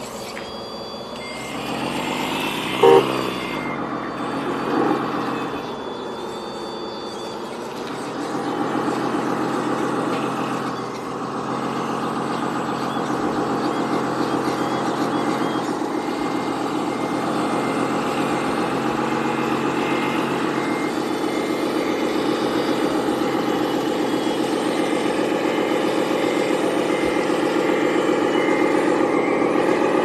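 Hydraulic RC 980L wheel loader running, a steady machine drone of its drive and hydraulics that grows louder from about eight seconds in, with a faint regular beeping throughout. A single sharp knock comes about three seconds in.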